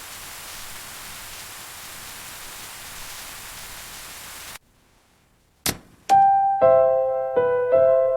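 A steady hiss cuts off suddenly a little past halfway. After a moment of near silence comes one sharp click, then soft piano music begins, a few notes at a time.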